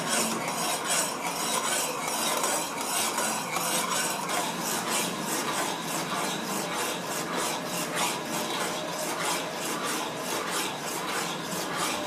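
A metal spoon stirring sugar syrup and lemon pieces in a kadhai, scraping against the pan at about two to three strokes a second.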